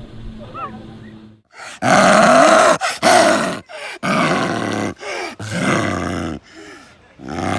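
Tiger growling and roaring in a string of loud, deep calls that start and stop abruptly, after a quieter first second or so.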